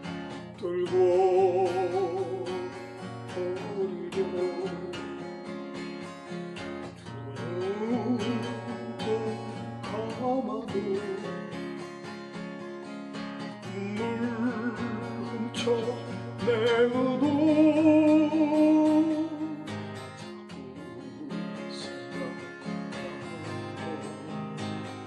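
A man singing with vibrato over an acoustic guitar strummed in a slow-rock rhythm, the voice swelling louder about a second in and again past the middle.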